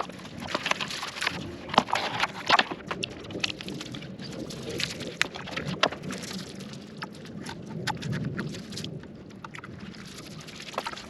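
Protective shipping packaging being pulled off a new mountain bike frame: irregular rustling and crinkling with many sharp clicks and snaps.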